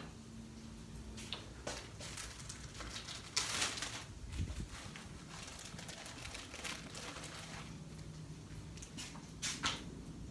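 Food on a flat-top griddle crackling faintly, with scattered small pops of grease. There is a brief louder rustle about a third of the way in, and another near the end as a flour tortilla is laid down on the griddle.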